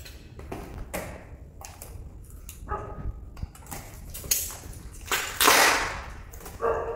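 Plastic wrap around packs of drawer slides rustling and crinkling as they are handled and pulled apart, in several short bursts, the loudest about five seconds in.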